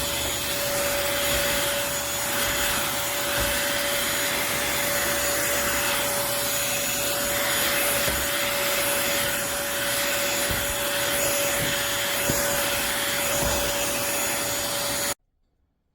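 Eureka corded stick vacuum cleaner's motor running steadily, a rushing hiss with a steady whine, then cutting off suddenly near the end.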